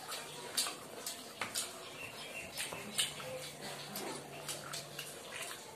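Close-up eating sounds: wet chewing, lip smacks and sharp mouth clicks, coming irregularly, as people eat fried rice and chicken curry with their hands.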